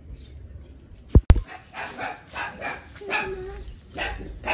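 Two sharp clicks about a second in, then a dog barking repeatedly in short, quick barks.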